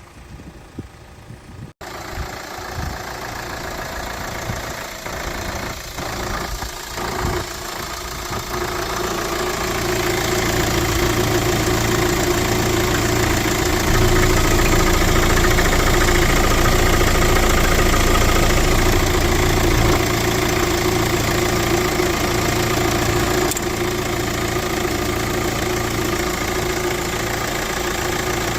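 Kia Sportage R's engine idling steadily, growing louder over the first ten seconds or so.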